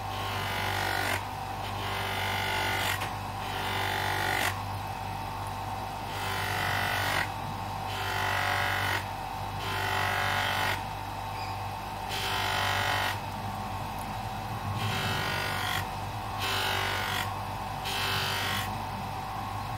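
Small bench grinder fitted with buffing wheels running with a steady hum, while a knife blade is drawn across the spinning wheel in about ten passes of a second or so each, every couple of seconds, each pass adding a hissing scrape. The edge is being buffed to a polish.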